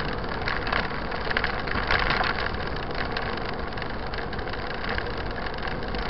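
Steady wind and tyre noise from a camera mounted on a mountain bike riding along an asphalt road, with a few faint rattles.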